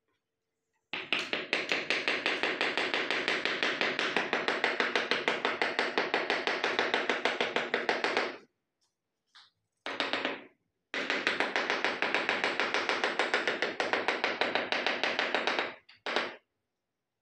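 Hands tapping quickly and evenly on a freshly laid ceramic floor tile, several taps a second, to bed it into the wet mortar. Two long runs of tapping with short bursts after each.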